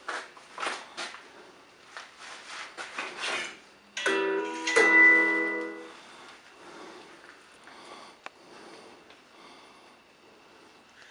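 A mobile phone's message alert chimes about four seconds in: two quick bright ringing notes that fade within two seconds. Brief scrapes and knocks come in the first few seconds.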